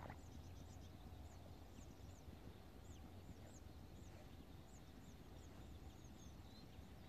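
Faint chirping of small birds: many quick, high, downward-slurred notes, several a second, over a low steady rumble.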